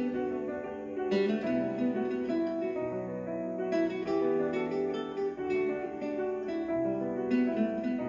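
Recorded music, a plucked-string passage of notes struck one after another, played through a pair of Revel M126BE bookshelf speakers with a 1-inch beryllium tweeter and a 6.5-inch ceramic woofer, heard in the room.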